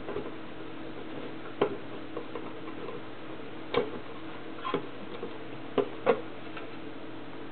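Sharp plastic clicks and knocks at uneven intervals as hands work the clear guard and its latches on a Watson-Marlow 603 peristaltic pump head, heard over a steady low hum.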